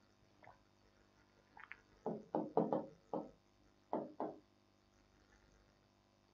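Chalk knocking and scraping against a blackboard as a word is written: about seven short, sharp knocks in two quick clusters from about two seconds in.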